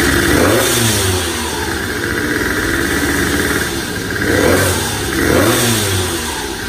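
Honda Dio Baja XR two-stroke scooter engine with a 48 mm big-bore kit, running on its centre stand and being revved. The pitch rises and falls back about a second in and twice more in the second half, with idling in between.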